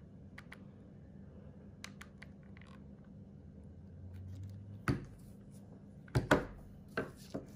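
Light clicks and handling taps from a hot glue gun being worked at a screw hole, then a few sharper knocks in the last few seconds as the gun is put down and the jaw is handled on a plastic-covered table.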